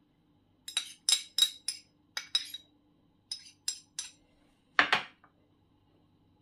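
A metal utensil tapping and scraping against a ceramic bowl, knocking chopped onion out into a clay tajine: sharp clinks in small clusters, then one louder, duller knock about five seconds in.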